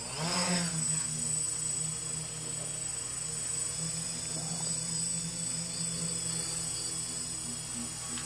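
Drone's motors and propellers spinning up with a rising whine in the first half-second, then holding a steady, high buzzing hum as it flies.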